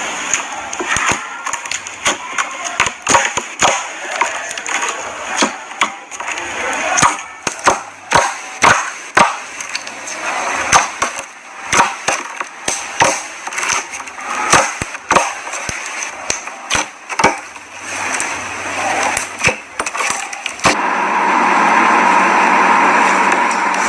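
Clear slime being squeezed and worked by hand, giving irregular sharp pops and clicks. About 21 s in these give way to a steady, louder rustling hiss.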